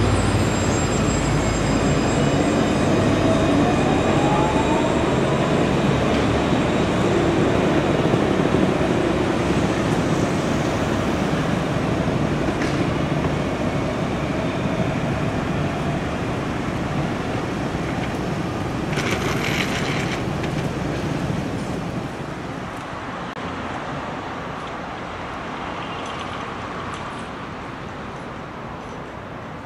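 Alstom Citadis 302 tram pulling away from a stop, its traction motors whining and rising in pitch a few seconds in. The running noise then fades into street traffic, with a short hiss about twenty seconds in.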